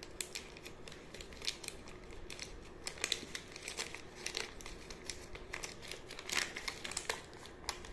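Gift-wrapping paper crinkling and rustling as it is unfolded and pulled off a small box, in quick irregular crackles, a few of them louder.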